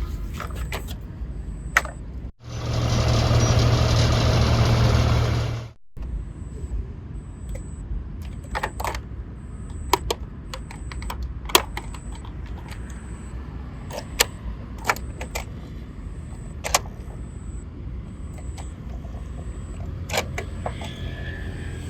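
Plastic toy vehicles being handled and run along a surface: a steady low rumble, a much louder noisy rush from about two to six seconds in, and scattered sharp plastic clicks and knocks.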